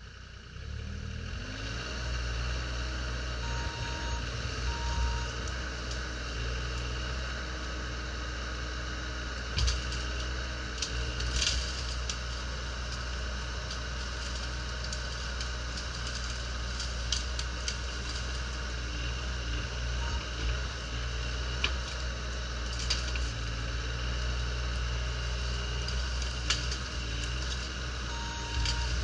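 Bobcat E35 mini excavator's diesel engine running steadily under hydraulic load as the boom pushes over a leaning tree, with a few sharp cracks of wood and some short beeps.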